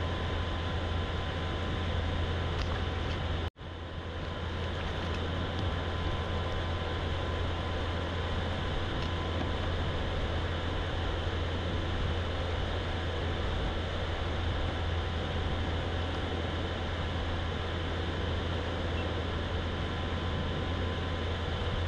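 Kayak's electric motor running steadily under way: an even hum with a faint steady whine. The sound cuts out abruptly for a moment about three and a half seconds in, then comes back.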